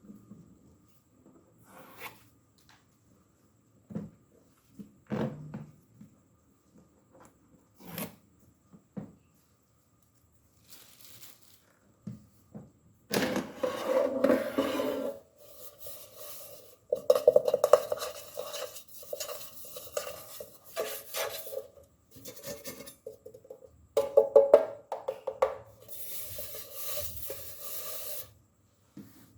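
Air fryer parts being handled: a few scattered light knocks and clicks, then, from about halfway, long spells of scraping and clattering of hard metal and plastic parts.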